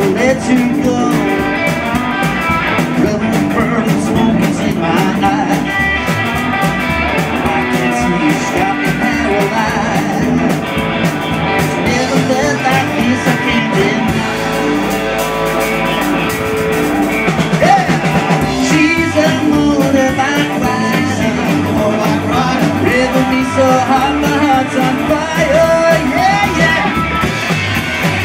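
Rockabilly band playing live: hollow-body electric guitar, upright double bass and drums, with a steady beat.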